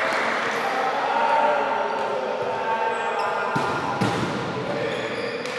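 Futsal ball being kicked and bouncing on a hard indoor court, with a couple of sharper kicks after about three and a half seconds. Players' voices call out against the echo of the sports hall.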